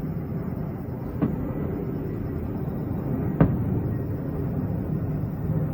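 Two firework bursts going off, a sharp bang about a second in and a louder one a little past three seconds, over a steady low rumble.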